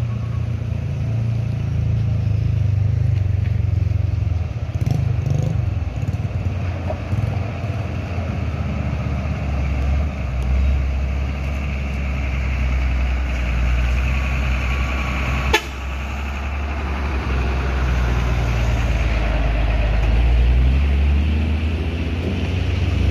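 Heavy Mitsubishi Fuso truck's diesel engine running at low speed with a deep steady rumble as the truck crawls up the climb. One sharp snap comes about fifteen seconds in.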